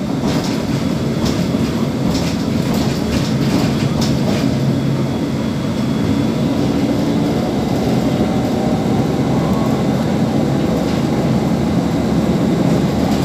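Inside a moving bus: a steady low rumble of engine and road noise, with a few light rattles in the first few seconds.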